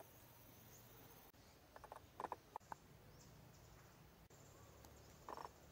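Near silence, with a few faint, short chirps about two seconds in and again near the end.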